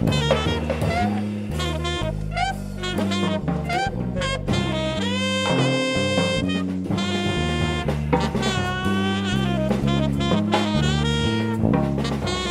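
Live jazz trio playing: a saxophone carries a melodic line of quick runs, bends and a few held notes over extended-range electric bass and a drum kit played with sticks.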